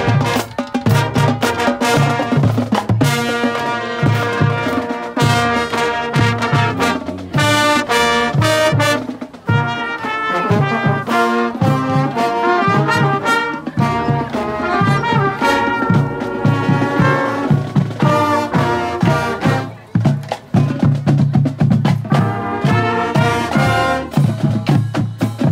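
Marching band playing on the march: trumpets, trombones and sousaphones in sustained chords over a steady beat of bass and snare drums, heard close up from within the band's ranks. The music drops out briefly twice, about a third and two-thirds of the way in.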